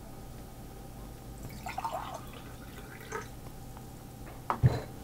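Water poured from a glass bottle, with a brief run of trickles and drips about two seconds in, then a soft knock near the end.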